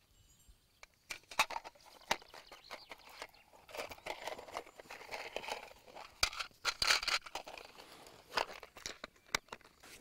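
Close rustling and crinkling handling sounds with scattered sharp clicks and taps, as a flint, a steel fire striker and tinder fungus are handled.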